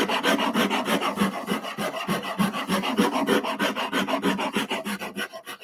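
Shinto Japanese saw rasp filing wood in quick, even back-and-forth strokes, shaping and smoothing the end of a block of timber. The rasping tails off near the end.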